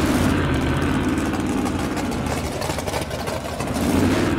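Car engine running at idle, with a brief rise and fall in revs near the end.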